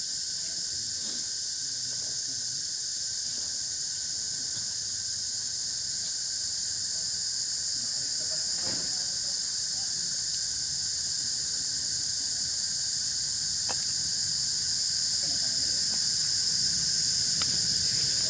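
Steady, high-pitched chorus of forest insects, slowly growing louder toward the end, with a few faint clicks and a low background murmur beneath it.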